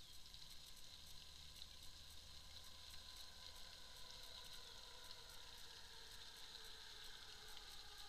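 Near silence: faint outdoor ambience with a steady high hiss and light crackling. From about halfway, a faint whine of several steady tones grows as a train crosses the elevated railway.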